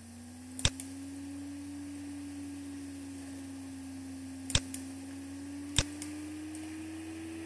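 A few computer mouse clicks, spaced seconds apart, over a steady low hum that climbs slowly in pitch.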